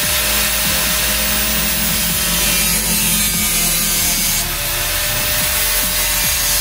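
Electric angle grinder with a cutting disc running at full speed and cutting through thin sheet-steel PC case panel: a steady motor whine over harsh grinding noise. The highest hiss eases off about four and a half seconds in as the cut goes on.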